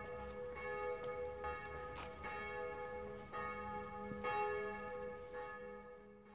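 Bells ringing: a run of struck, ringing bell tones at several pitches, one strike every half second to a second, fading out over the last couple of seconds.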